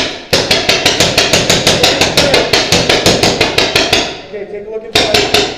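Paintball markers firing in rapid strings, about eight shots a second, with a short break about four seconds in before the firing starts again near the end.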